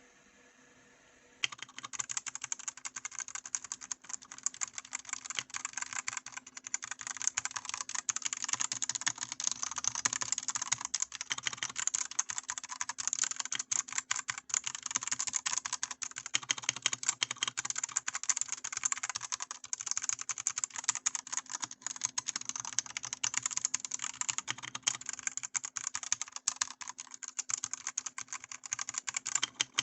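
Continuous fast typing on a Redragon Caraxes Pro K644 SE mechanical keyboard, with stock Redragon red linear switches, oversized double-shot keycaps and an all-plastic case. The keystrokes start about a second and a half in.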